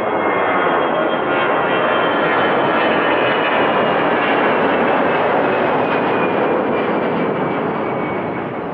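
Jet engines of an Airbus A320-family airliner at takeoff thrust: a loud, steady roar with faint whining tones on top, starting to fade near the end.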